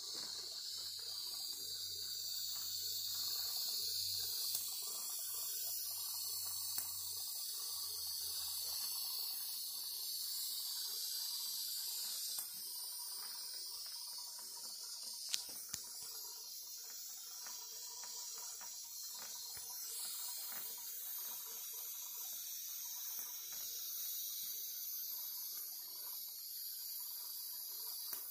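Stuart model beam engine running on live steam from a propane-fired Stuart 501 boiler: a steady high hiss, with a sharp click about halfway through.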